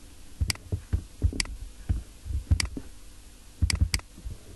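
Computer mouse clicking: a few single clicks spaced about a second apart, then two quick clicks near the end, with some dull low thumps over a faint steady hum.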